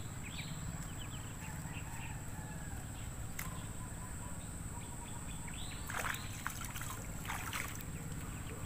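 Shallow pond water sloshing and splashing as a man wades and works with his hands among floating water plants, with a few louder splashes about six to seven and a half seconds in.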